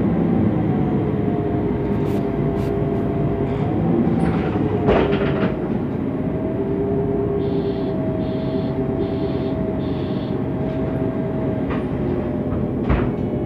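MAN NG 273 T4 articulated bus with an LPG engine running, a steady drone with a whine that wavers slightly in pitch, and a few sharp knocks. Near the middle come four short high beeps a little under a second apart.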